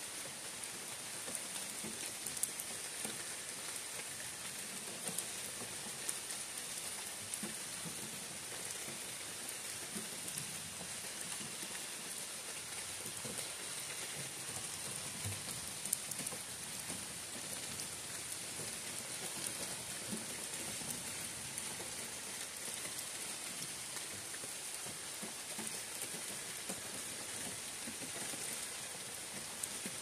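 Steady rain falling on a leafy forest canopy: an even hiss of drops, with now and then a single louder drip.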